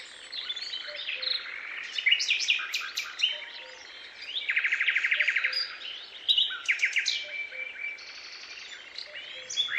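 Songbirds singing: a busy mix of quick chirps and short falling whistles, with a fast rattling trill about halfway through.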